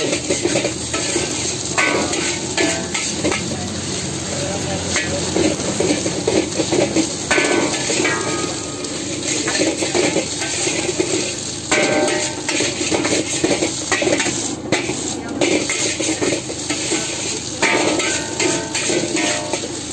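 Steel spatula repeatedly scraping and clanking against a large steel wok as egg fried rice is stir-fried and tossed, with a steady sizzle of frying underneath and short metallic rings after some strikes.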